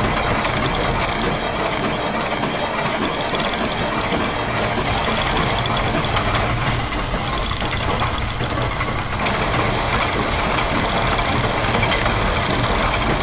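Layered loops of machine mechanisms, gears and ratchets clicking and clattering continuously over a low mechanical hum, with the high, bright part of the texture dropping back for a couple of seconds midway.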